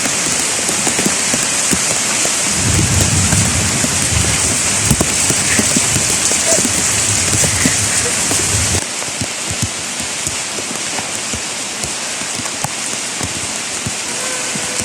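Heavy tropical rain falling steadily, with many close drops ticking on surfaces. A low rumble joins in from about two and a half seconds to about nine seconds, after which the rain is a little quieter.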